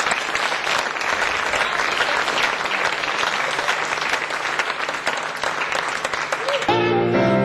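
Theatre audience applauding with a dense clatter of handclaps at the end of a piece. Music starts near the end.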